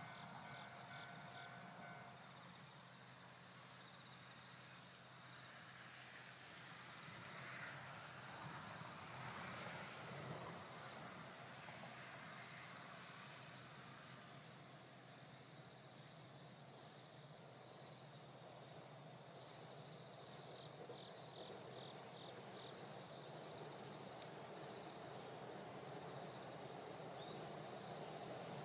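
Faint insects chirping in a high, rapidly pulsing trill that repeats over and over, against a soft background hiss.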